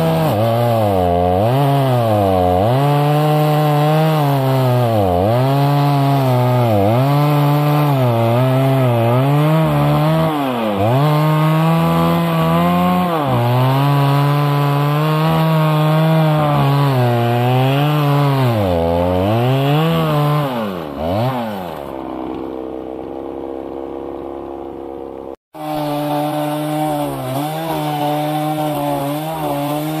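Two-stroke petrol chainsaw cutting through tree trunks at full throttle, its engine pitch dipping again and again as the chain bogs down under load in the wood. About 21 seconds in it drops to idle for a few seconds, cuts out for an instant, then comes back at full revs.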